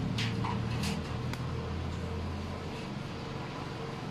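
A few faint clicks of small metal reel parts being handled, over a steady low hum.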